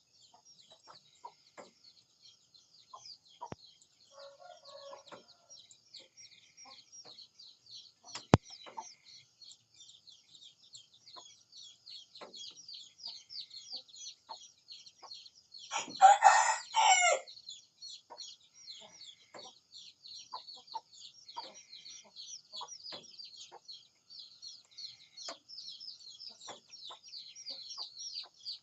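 A rooster crows once, loudly, about sixteen seconds in, over a steady high-pitched chirping that runs throughout. A faint distant call comes about five seconds in, and a single sharp click near eight seconds.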